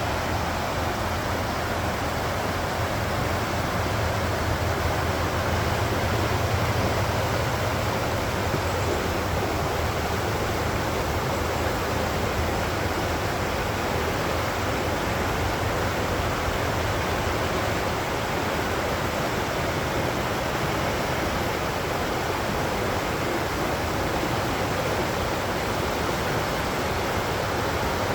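Steady rushing water, an even unbroken roar.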